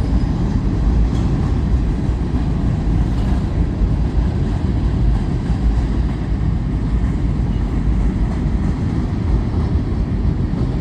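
A long train rolling past close by: a steady, loud low rumble of its cars going over the rails.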